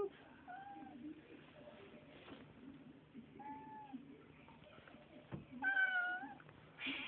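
A domestic cat meowing: three short meows, two faint ones and a louder one near the end, with a soft knock just before the loud one.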